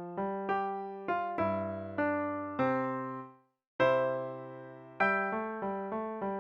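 Solo piano playing a simple melody. The notes step down to a low chord that fades out about three seconds in, a short silence follows, then a new held chord and, from about five seconds in, quick repeated notes.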